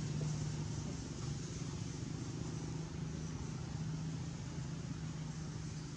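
Steady low mechanical hum, like an engine running, with an even outdoor hiss over it.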